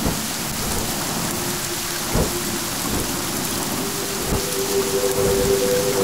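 Steady rain falling on a surface, with rumbles of thunder. Long held notes of soft background music come in about two seconds in, with a second, higher note joining near the end.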